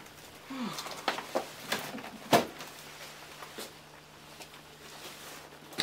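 Cardboard box of magazines being set down and handled in a small room: a few soft knocks and rustles, with one sharp knock about two seconds in.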